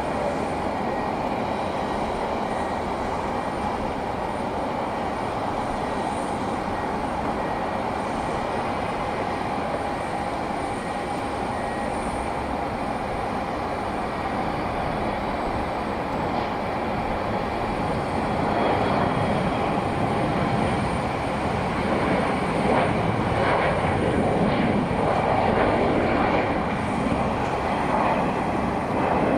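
Jet airliner engines running with a steady whine and rush, growing louder about two-thirds of the way in.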